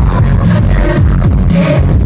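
Loud live electronic pop music played through a concert PA, heavy in the bass. The sound is harsh and overloaded because the recording was made right next to one of the loudspeakers.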